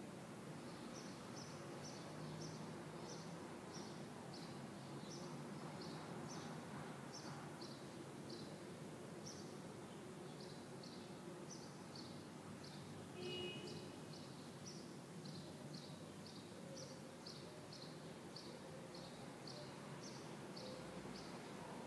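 Urban ambience: a steady low background rumble with short, high chirps repeating about twice a second throughout, and a brief higher tone about halfway through.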